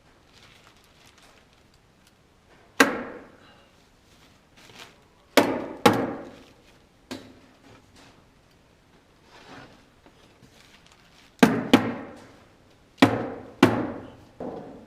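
Knocks on wooden siding boards during installation: about seven sharp hits with short ringing tails, some in close pairs and others spread out with pauses between.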